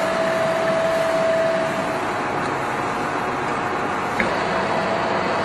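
Large CW61125B heavy-duty engine lathe running: a steady mechanical hum with a whine that stops about two seconds in, and one click about four seconds in.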